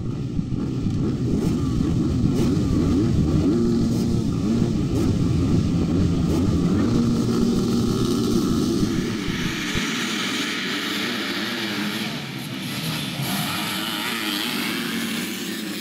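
A pack of motocross bikes revving together at the starting gate, the engines held high with wavering pitch. About ten seconds in they launch off the line and the engines rev higher as they pull away.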